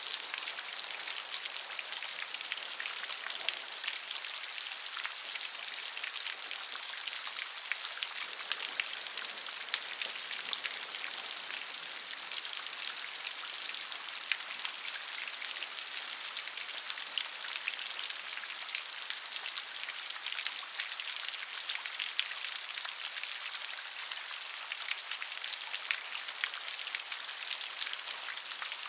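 Steady rain falling, a dense patter of many small drop ticks over an even hiss, with no change in strength.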